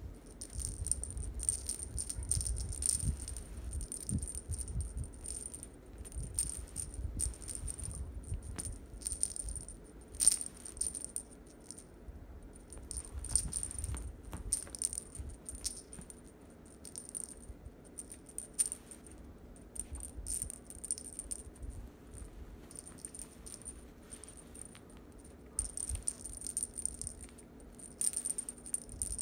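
Dangling owl-shaped cat toy rattling and jingling in irregular bursts as a cat bats and grabs at it, with an occasional sharper click.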